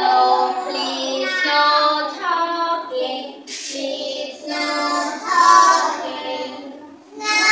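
A group of young children singing a song together with a woman's voice, in phrases of held notes with short breaks between lines.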